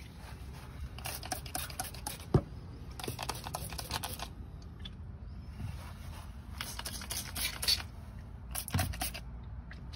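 Trigger spray bottle pumped quickly in four bursts of rapid spritzes, spraying the truck's front suspension joints and coil spring to cure a squeak. One sharp knock about two and a half seconds in.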